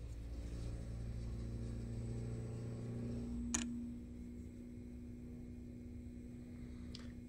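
A low, steady mechanical hum with a few steady tones. Its deepest part drops away after a sharp click about three and a half seconds in, and a second faint click comes near the end.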